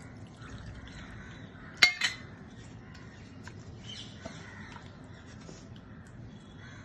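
Kitchenware clinking sharply twice in quick succession about two seconds in, while ginger-soaked water is being strained. Faint bird calls in the background.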